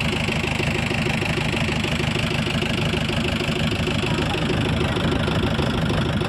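A motorboat's engine running steadily under way, with a fast, even knocking beat in its note.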